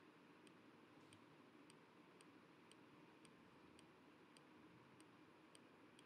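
Near silence with a faint hiss and a faint, evenly spaced click about twice a second.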